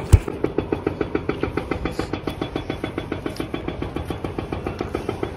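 A small engine idling steadily, with a fast, even pulse of about eight to nine beats a second. A sharp knock of the phone being handled comes right at the start.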